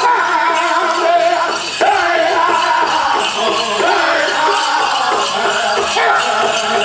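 Many voices singing and calling, together with the jingling of bells on powwow chicken-dance regalia, right after the drum beat stops.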